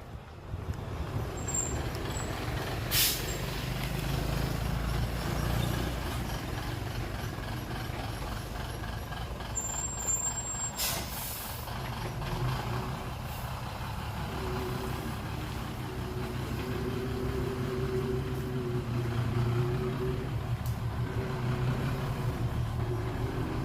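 Dump truck's diesel engine running steadily, with two short hisses of its air brakes, about three seconds in and again about eleven seconds in.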